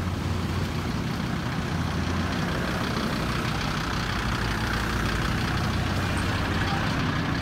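Large truck engine idling steadily, a low continuous hum, with road traffic going by; the tyre and engine noise swells in the middle as a vehicle passes.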